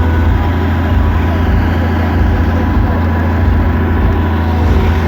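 A large engine running steadily, a loud, deep, unchanging rumble.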